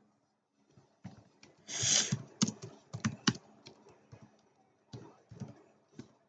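Computer keyboard typing: irregular key clicks in quick runs, with a louder, brief rustling noise just before two seconds in.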